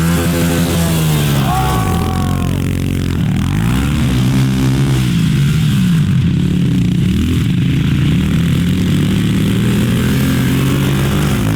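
Pit bike engine being ridden hard, revving up and dropping back again and again as the rider works the throttle and shifts gears.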